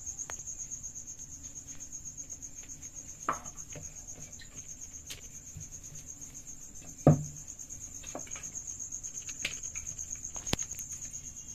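Wooden rolling pin rolling and knocking on a marble board as momo dough is rolled out, with a few light clicks and one sharp knock about seven seconds in. A cricket trills steadily and high-pitched throughout.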